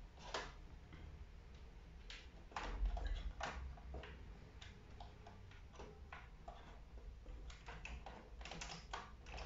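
Faint, irregular clicks and knocks: a ring light's power cable and plug being handled and plugged in, with a cluster of clicks near the end.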